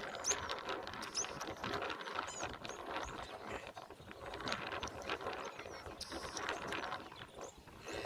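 Lions growling as they wrestle down a Cape buffalo, a dense, continuous clamour with short high chirps over the top.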